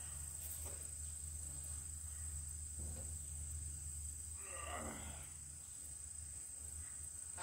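Steady high-pitched drone of insects over a low, steady hum, with a faint brief sound about halfway through.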